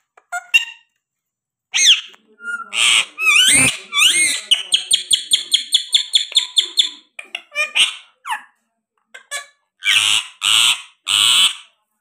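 Indian ringneck parakeet chattering and calling: scattered chirps and whistles, then a fast run of short repeated chirps lasting a few seconds, and three loud harsh squawks near the end.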